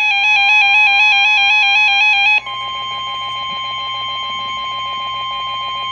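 Weather radio receivers sounding a warning alert: a rapidly warbling alarm, then about two and a half seconds in a switch to the steady long tone of the NOAA Weather Radio warning alarm with a faster pulsing beep under it. It is the alert that comes before a severe thunderstorm warning is read out.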